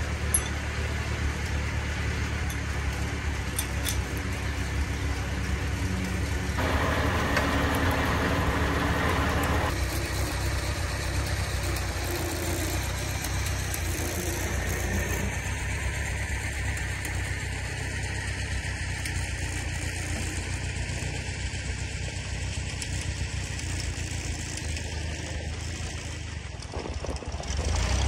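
Small farm tractor's engine running steadily at low speed while towing another tractor on a strap, with a louder stretch of about three seconds roughly a quarter of the way in.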